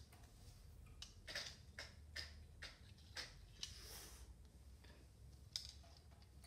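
Near silence: room tone with a handful of faint, irregularly spaced clicks and a soft brief hiss about four seconds in.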